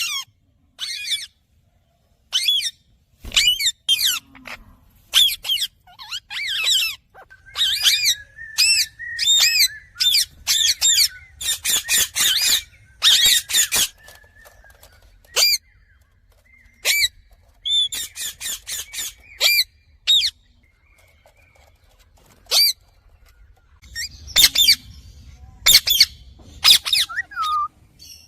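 Indian ringneck parakeet calling: many short, shrill squawks, some in quick runs of several, with brief pauses between them.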